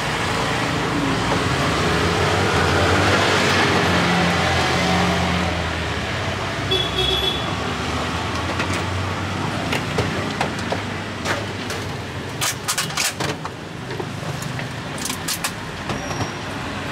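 Street traffic running past, with one vehicle passing close and loud, peaking about three seconds in and fading. Later a quick run of sharp clicks and taps sounds over the traffic.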